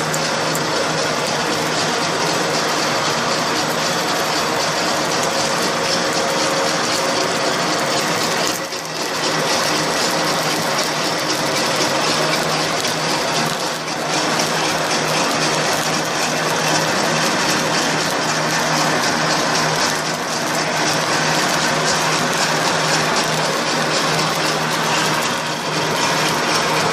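Snack extrusion line running: a steady, dense mechanical clatter and rattle over a low hum, dipping briefly about four times.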